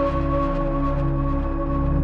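Background music with sustained ambient synthesizer tones.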